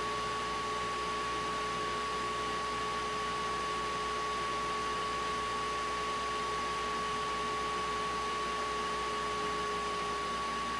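A steady high-pitched tone holding one pitch, with a fainter lower tone beneath it, over an even hiss.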